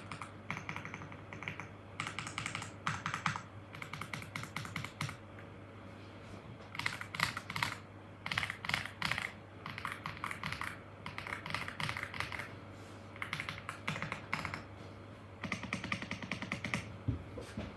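Typing on an F65 mechanical keyboard with Graywood v3 switches in stock, unmodified form: rapid keystrokes in bursts of about a second, with short pauses between bursts.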